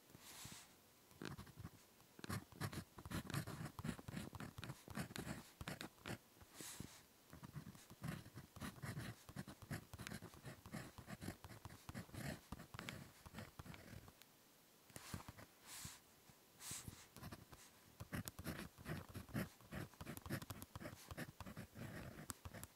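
Close-miked ballpoint pen writing on paper in quick short scratchy strokes, as words are handwritten one after another, with a brief pause about two-thirds of the way through.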